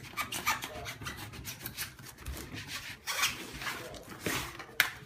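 Knife sawing through packing tape and cardboard on a shipping box: a run of irregular scraping strokes.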